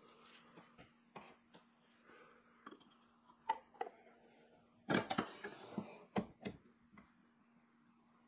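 Scattered clicks and knocks of hard objects being handled, with a cluster of louder knocks about five to six and a half seconds in, over a faint steady hum.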